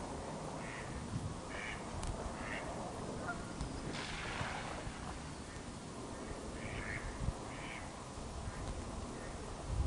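Waterfowl calling across the loch: three short calls about a second apart, then a pause and two more, over a steady low rumble. A brief rush of noise swells about four seconds in.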